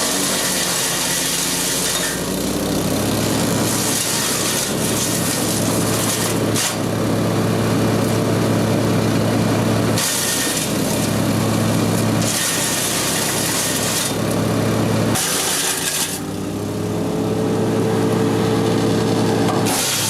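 Hyundai HYCH7070E-2 wood chipper running on its 208cc four-stroke petrol engine while branches are fed through, with loud stretches of shredding and chipping noise every few seconds. About 16 seconds in the engine pitch dips and climbs back as it labours under a load of wood.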